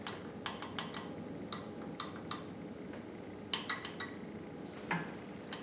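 A series of sharp, irregular metallic clinks and taps, about a dozen in all: hand tools and small engine parts being handled and set down during a small-block V8 teardown.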